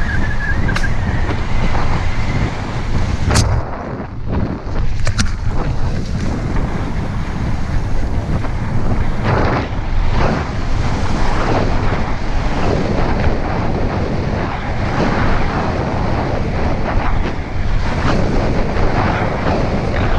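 Wind buffeting a rider-worn camera's microphone as a mountain bike rolls down a dirt trail, with sharp knocks from the bike about three and five seconds in.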